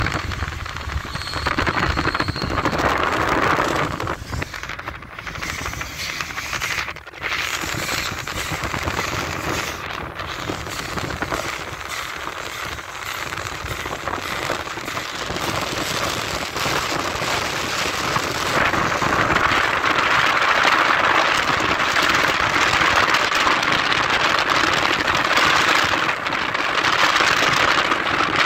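Wind buffeting and road noise from a moving car running alongside a steam-hauled train: a dense, rough rushing noise that grows louder in the second half.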